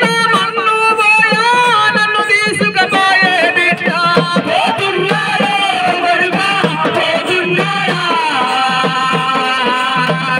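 A man singing a Telugu funeral song into a microphone, amplified through a loudspeaker, in a wavering, ornamented melody that runs on without a break.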